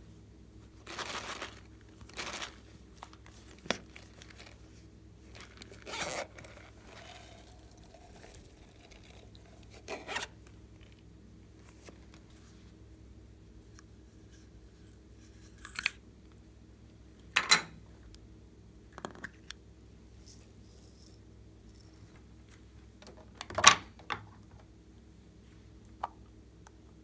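Hard plastic slime containers being handled and opened: scattered clicks, taps and snaps of plastic lids and tubs, with a few brief scrapes. The sharpest knock comes near the end.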